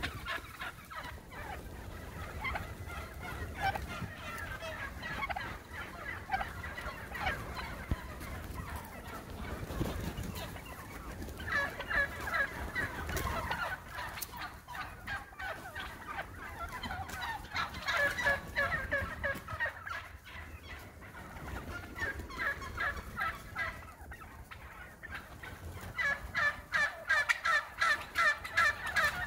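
A large flock of wild turkeys calling, many short calls overlapping all the time. There are louder bursts of calling about twelve and eighteen seconds in, and a fast, loud run of calls near the end.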